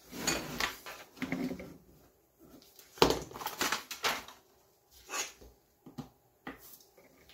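Irregular workbench handling sounds: an aluminium printer bed shifted on a cutting mat and a utility knife scraping as it trims excess adhesive magnet sheet off the bed's edge, with a sharp knock about three seconds in.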